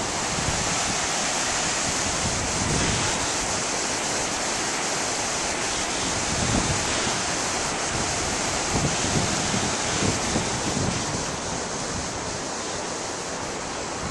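Steady rush of river rapids flowing below, with occasional low gusts of wind on the microphone.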